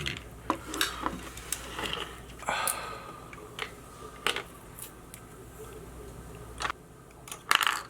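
Irregular small clicks and taps of hand tools against a small action camera's internal parts during disassembly, with a short scrape about two and a half seconds in and a quick cluster of clicks near the end.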